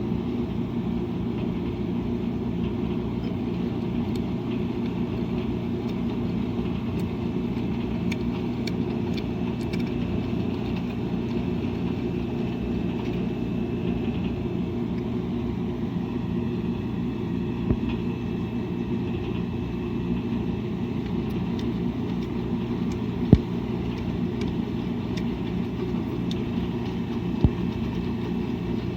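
Washing machine running with a steady low hum and rumble. Three brief sharp knocks cut through it, the loudest about two-thirds of the way in.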